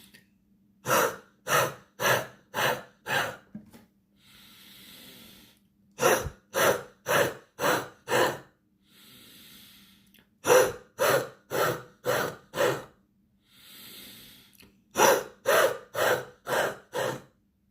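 A man doing a breathing exercise: a long inhale through the nose, then five short, forceful puffs out through the mouth with the lower lip tucked in, repeated four times. The breather takes the sound in the puffs for phlegm moving in his chest.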